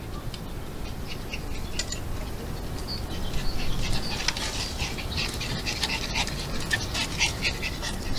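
A dog panting in quick rhythmic breaths, louder from about three seconds in, over a low rumble.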